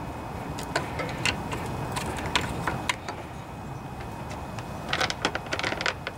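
Light metallic clicks and clinks of a replacement ignition coil and its mounting hardware being handled and set onto the engine's mounting posts, scattered through the first half and bunched together near the end.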